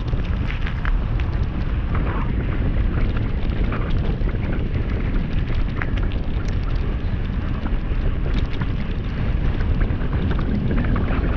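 Wind buffeting the microphone during a fast downhill ride, over a steady rumble of tyres on rough asphalt, with small scattered clicks of grit and gravel.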